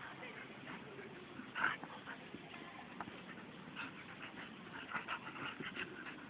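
Petit Basset Griffon Vendéen dogs whimpering in short bursts as they roll on their backs in grass. The loudest sound comes about a second and a half in, and a quick run of sounds follows near the end.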